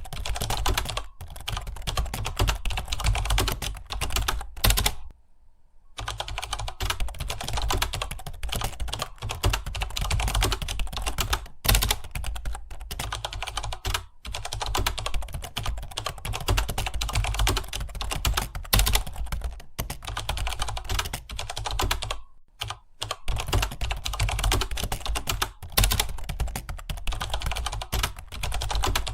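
Fast continuous typing on a computer keyboard, dense key clicks with brief pauses about five seconds in and again past twenty seconds.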